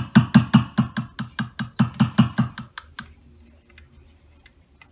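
Guitar pickup circuit heard through an amplifier, giving a quick, even run of about fifteen pops and thumps, about five a second, for some three seconds. It is being tested after the switches were cleaned with contact cleaner.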